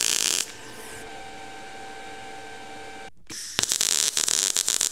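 MIG welding arc from an ESAB Rogue EM 180 tacking steel: a short burst of arc crackle at the start, a quieter steady hum between, then from about three and a half seconds in the arc crackles and sputters again as the wire feeds.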